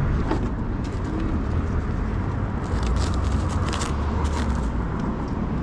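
Steady low rumble of background traffic, with scattered light clicks and clatter of food being served into a container, thickest about three to four seconds in.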